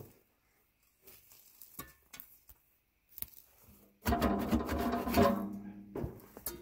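Sheet-metal stovepipe elbow grating and scraping with a metallic ring as it is twisted and pulled off a small wood stove's flue collar, about four seconds in and lasting some two seconds. A few light knocks and clicks come before it.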